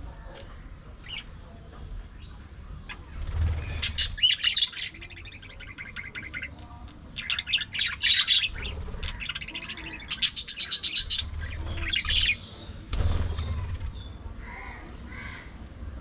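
Budgerigars chirping and chattering in bursts, with fast runs of repeated chirps about ten seconds in.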